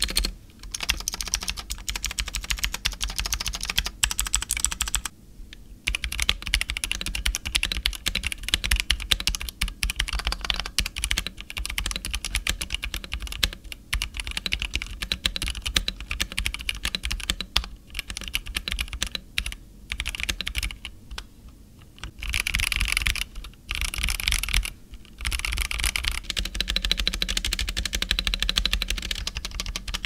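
Fast typing on a Zifriend T62 60% plastic mechanical keyboard: first on its clicky blue switches, then partway through on its linear red switches. The keystrokes clatter on with several short pauses, with little rattle and no dampening.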